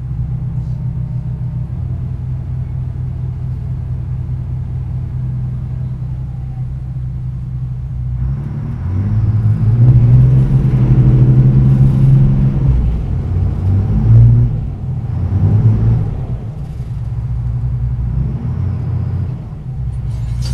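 Car ferry's engine rumbling steadily at first. About eight seconds in it grows louder, and its pitch rises and falls for several seconds as the boat is worked in to dock at the landing ramp, then it eases back.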